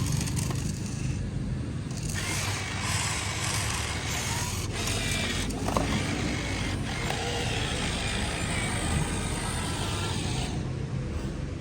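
Small geared motors of an RC construction model whirring and grinding for several seconds, with a faint whine, over a steady low hum.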